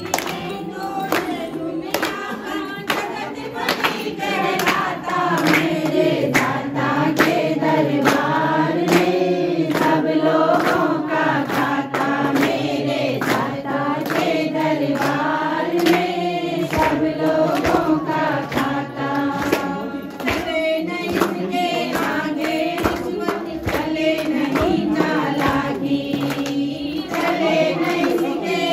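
A group of people singing a devotional song together in unison, clapping hands in a steady beat.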